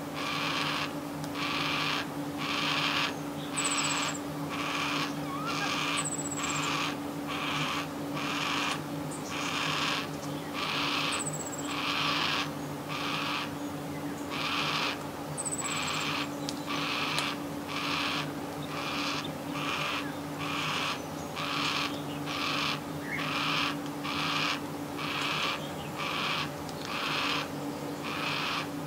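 A young yellow-tailed black cockatoo begging for food: a harsh call repeated steadily about once a second.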